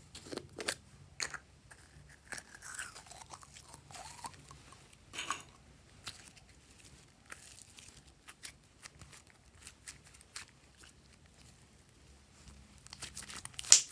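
Hands squishing and stretching slime: irregular sticky clicks and pops, with a louder burst of crackling pops near the end.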